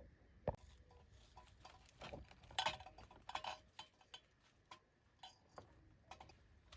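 Small hard objects being handled: a string of irregular light clicks and clinks, with a sharp one about half a second in and a busy cluster around the middle.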